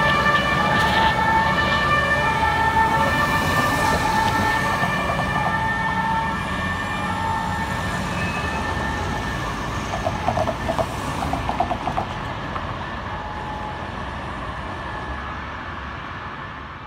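Fire engine's two-tone siren alternating between a high and a low note, fading steadily as the truck drives away, over a steady rumble of road traffic.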